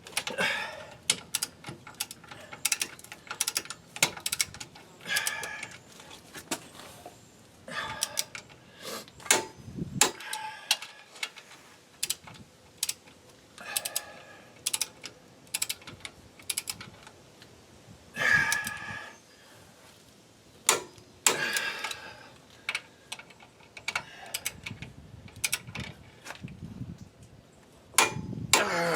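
Hand tools working on metal rear-brake hardware: irregular sharp clicks and clinks of metal on metal, with a few short rasping or ratcheting sounds.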